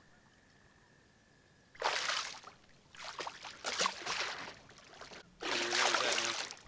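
A hooked channel catfish thrashing at the surface beside a kayak, splashing water in three bursts, the first about two seconds in and the last near the end.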